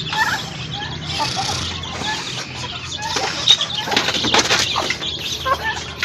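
Backyard chickens flapping their wings, with rustling strokes thickest in the second half, and scattered clucks and chirps from the flock.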